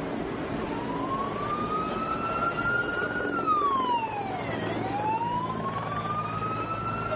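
Emergency vehicle siren wailing: the pitch climbs slowly, drops quickly about halfway through, then climbs again, over steady street noise.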